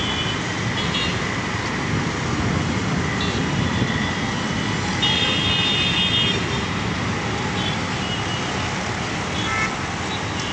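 Steady road traffic noise from a congested multi-lane road, with car horns sounding a few times; the longest honk, about a second long, comes about five seconds in.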